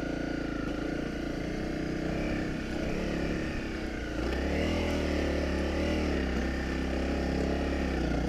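Honda CRF250 Rally's single-cylinder engine running under load as the motorcycle climbs a soft sand track. It gets louder and its pitch shifts about four seconds in.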